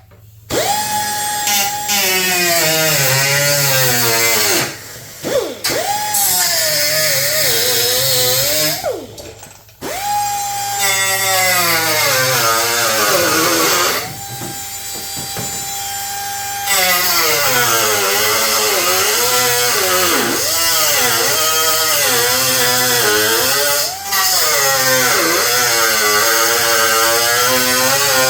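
Small cutoff-wheel tool cutting sheet steel of a hood patch panel along a marked line: a high whine that sags and wavers in pitch as the wheel bites into the metal and climbs back when it runs free. It stops briefly twice, around five and nine seconds in.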